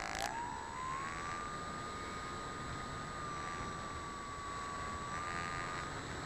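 Engine of a large RC model airplane heard from a camera mounted on the plane, over steady wind rush. The engine's pitch rises over the first second, then holds steady with small dips and rises.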